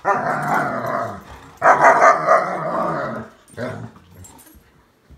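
A German Shepherd and a Boxer play-fighting, growling: two long growls, the second the loudest, then a short one, before the sound drops away about four seconds in.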